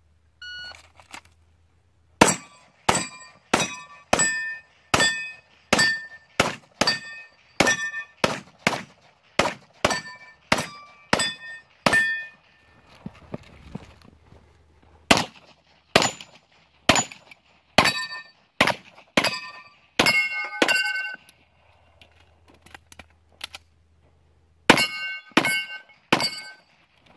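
A competition shot timer beeps, then a 9mm 2011-style pistol fires in rapid strings. Each shot is followed by the brief ring of a steel plate being hit. About twenty shots come in the first ten seconds, then after a pause there are two shorter strings.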